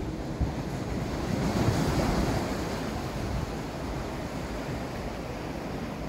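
Sea surf washing onto the shore, a steady rushing that swells to a peak about two seconds in and then eases back.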